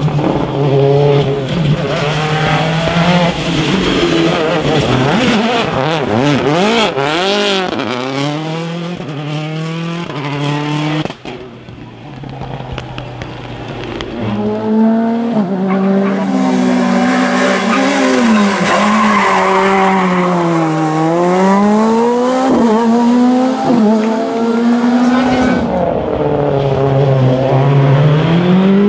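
Rally cars at full stage speed, engines revving hard and rising and falling in pitch through gear changes, with tyre squeal. The first car's sound drops off suddenly about eleven seconds in, and a few seconds later another car comes in loud, revving up and down.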